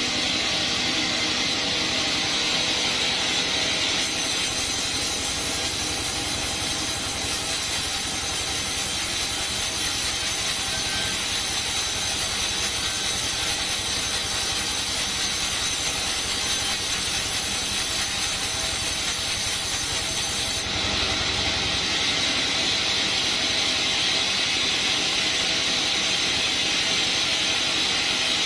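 Sawmill bandsaw running steadily and sawing through coconut wood. The sound gets brighter and hissier about four seconds in and settles back about twenty-one seconds in.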